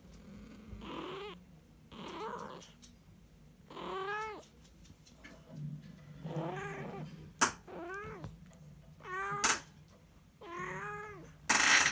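Burmese kitten mewing over and over, about seven high, arching meows each under a second long, spaced a second or two apart. A couple of sharp clicks fall in between, and a loud rustling bump comes near the end.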